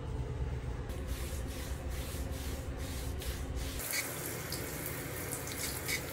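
Water running from a tap into a sink, splashing unevenly at first and becoming a fuller, steady flow about four seconds in.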